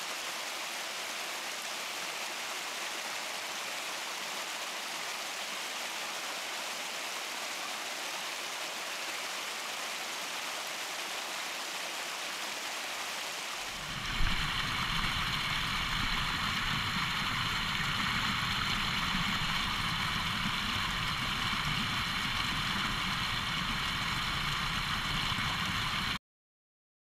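Creek water rushing and splashing down a small rocky cascade, a steady hiss. About halfway through it changes abruptly to a louder, deeper rush of water pouring over the rocks, which cuts off suddenly just before the end.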